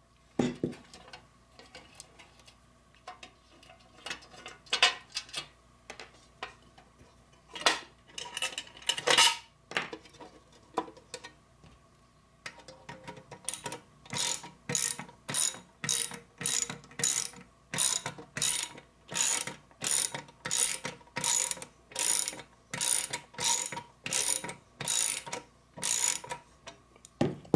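A 3/8-inch-drive socket ratchet clicking with each back-stroke as it turns a Torx bit socket on a screw. A few strokes come at first, then a steady run of about one and a half strokes a second from about halfway through.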